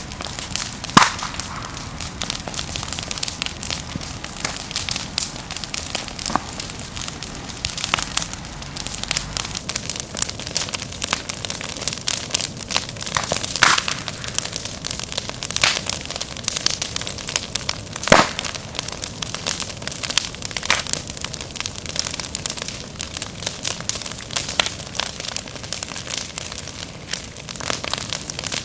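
Fire crackling: a constant hiss with dense small snaps and a few louder pops, the loudest about a second in, about halfway through and about two-thirds of the way through.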